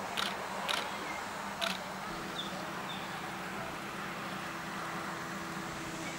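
Camera being handled while zooming: four sharp clicks in the first two seconds over steady outdoor background noise. A low steady hum joins about two seconds in, with a few short faint chirps.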